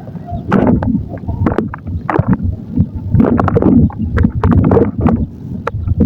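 Thick wet mud paste squelching as it is worked, in irregular sloppy bursts with sharp little clicks and pops.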